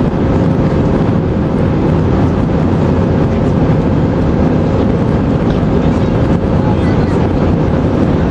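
Airbus A319-112 cabin noise in flight: the steady roar of the CFM56 turbofan engines and airflow, with a steady hum underneath.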